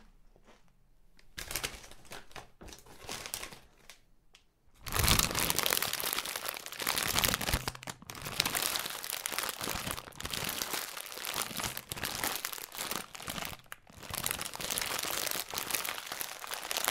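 A plastic chip packet rustling and crinkling as it is handled: a few soft rustles at first, then loud, continuous crinkling from about five seconds in, broken by short lulls every couple of seconds.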